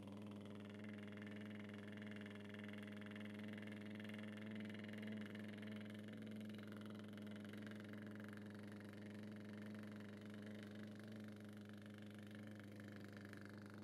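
A man's lip buzz (lip trill): his lips flutter on a long, continuous out-breath while his voice holds one steady low pitch, without a break.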